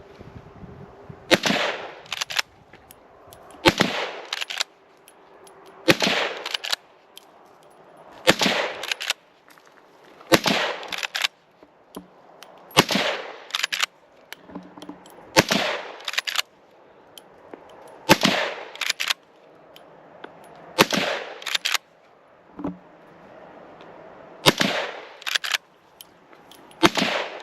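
Eleven shots from a Winchester 9422 Magnum lever-action rifle in .22 Winchester Magnum, one every two to three seconds, each followed by the clack of the lever cycling the next round. The roughly 47-year-old Winchester Western ammunition fires every time.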